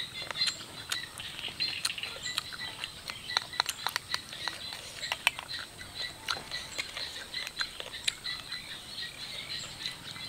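Close mouth sounds of eating papaya salad and noodles: chewing and smacking, heard as many quick, irregular sharp clicks. Crickets chirp steadily behind.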